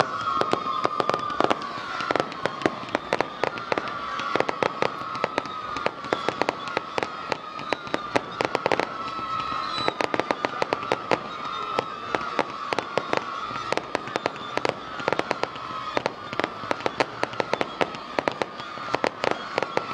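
Fireworks display: a rapid, unbroken string of bangs and crackles from bursting shells, several a second, with a steady, slightly wavering high tone underneath.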